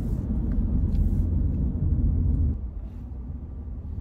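Car road and engine noise heard from inside the cabin: a steady low rumble that drops noticeably about two and a half seconds in.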